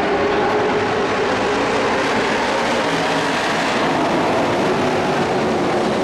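Field of dirt-track racing trucks running at speed around the oval, a loud, steady din of many engines together.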